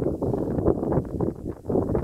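Lions feeding on a zebra carcass: low growling mixed with the tearing and chewing of meat, coming irregularly.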